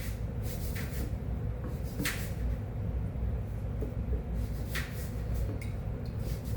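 Baby oil being poured into a jar: a steady low rumble with a few soft knocks and ticks from the bottle and jar being handled.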